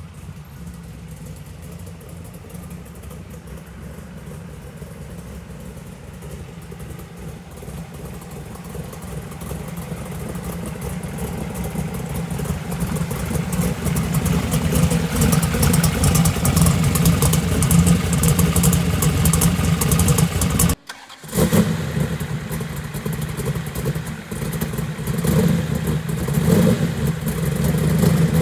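A T-bucket hot rod's 358-cubic-inch small-block NASCAR V8 running at low speed as the car drives up, growing steadily louder as it comes close. It cuts out for a moment about three quarters of the way through, then carries on close and loud.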